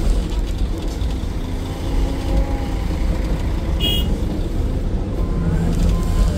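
Excavator's diesel engine running steadily with a deep low rumble, with one brief high-pitched sound about four seconds in.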